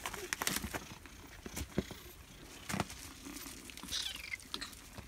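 Kittens scuffling and rustling on a blanket and pet bed, with scattered small clicks and crinkles. A kitten gives a short, high, falling mew about four seconds in.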